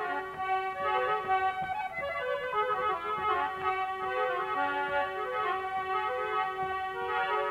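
Instrumental interlude in a Rajasthani devotional bhajan: a keyboard instrument with a reedy, organ-like tone plays the melody over light percussion, with a falling slide about two to three seconds in.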